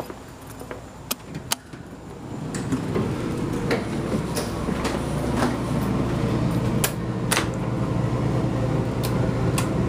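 Passenger elevator: a few clicks, then about two and a half seconds in a steady hum rises and holds, with scattered clicks and knocks over it.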